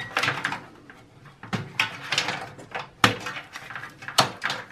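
Plastic power connectors and wiring being handled inside a desktop computer case: a string of sharp clicks and rustles as a 6-pin power plug is unplugged from the motherboard and the power-supply cable bundle is pulled aside.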